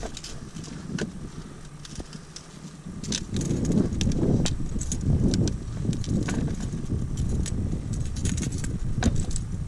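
Clicks, knocks and clattering of gear and landing net on a plastic kayak deck while a landed alligator gar is handled in the net, with heavier thumping and rustling setting in about three seconds in.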